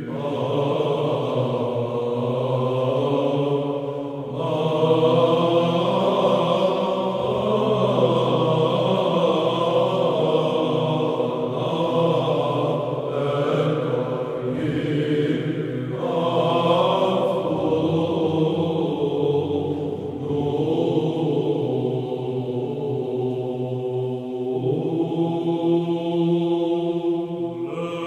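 Background music of chanted singing: voices held on long notes over a steady low drone, moving to a new phrase every few seconds.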